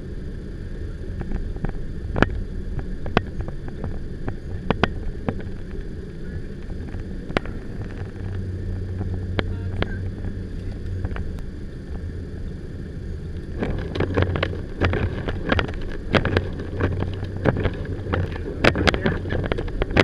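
Steady low road and wind noise heard from inside a vehicle driving through a blizzard, with irregular sharp ticks that come much thicker about two-thirds of the way through.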